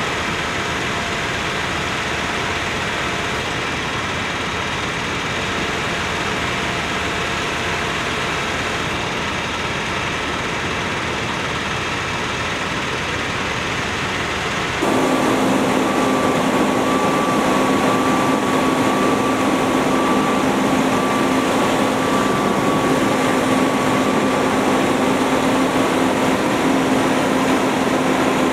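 Heavy trucks' diesel engines idling steadily. About halfway through it cuts to a louder, closer engine with a steady low drone.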